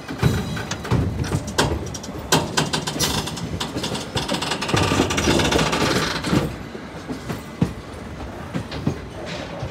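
Passenger train coach wheels clattering over the rails, with a run of sharp knocks over a steady rumble, heard from an open coach door while rolling into a station. The clatter and rumble grow loudest in the middle and ease off near the end.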